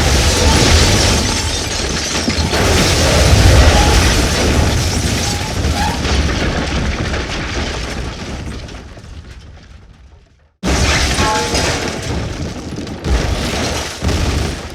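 Explosion sound effect: a sudden blast with a deep rumbling tail that swells a few seconds in, then dies away over about ten seconds. A second explosion starts abruptly about ten and a half seconds in, with sharp crackles in its rumble.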